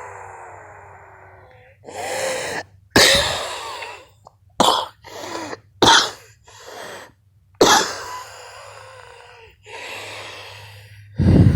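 A person with allergies coughing in a run of short, sharp coughs, with wheezy breaths between them that carry a faint whistle.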